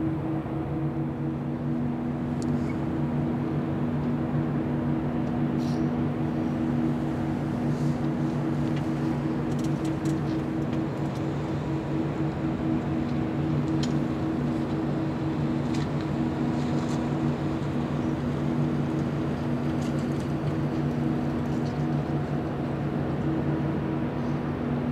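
Steady low engine drone with several held tones, unchanging throughout, with a few faint clicks.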